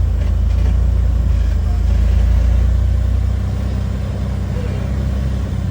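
Jeep Wrangler LJ's engine running at low revs with a steady low rumble while crawling over rock; the rumble eases a little about three seconds in.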